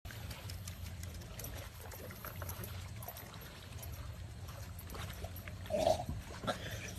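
Faint water lapping and light splashing as a large dog swims with a small dog on its back, over a steady low rumble; a brief louder sound about six seconds in.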